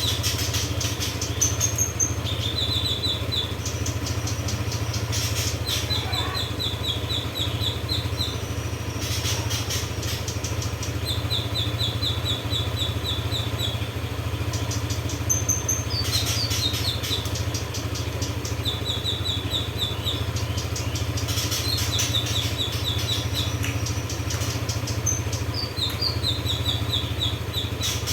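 Female kinoi bird calling: repeated short rattling series of quick, high chip notes, now and then with a higher whistled note, recurring every few seconds over a steady low hum.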